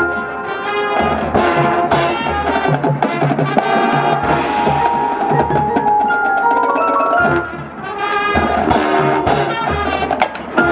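Marching band playing its field show: brass over a front ensemble of mallet keyboards and drums. A rising run of notes comes about seven seconds in, followed by a brief drop in level.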